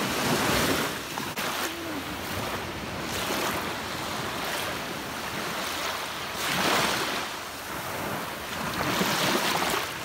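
Small waves breaking and washing up onto a sandy beach, the surf swelling and easing, with louder surges about half a second in and again around six and a half seconds.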